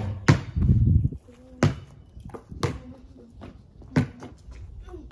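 A basketball bouncing on a concrete driveway: four separate sharp bounces, about a second apart.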